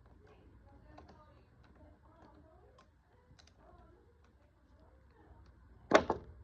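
Faint, scattered clicks and ticks of tools and small parts being worked on an electronic lock's housing. Near the end comes one sharp, loud knock.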